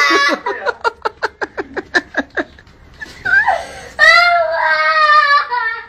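A young child crying: a wail, then a run of quick sobbing catches of breath, about eight a second, then a long held wail near the end.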